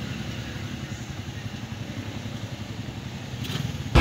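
An engine running steadily, a low uneven rumble.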